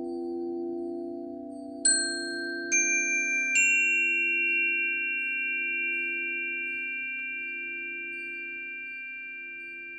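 Metal chime bars on a wooden resonator base struck three times with a mallet, each note higher than the last, ringing out together and slowly fading. Under them the lower, gently wavering hum of a frosted quartz crystal singing bowl keeps ringing from an earlier strike.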